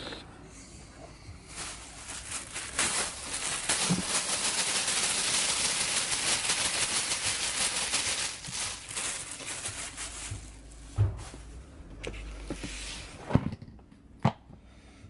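Kitchen scraps rustling and crackling as they are tipped out of a bag into a plastic worm bin for several seconds, followed by a few sharp knocks as the bin's plastic lid is handled.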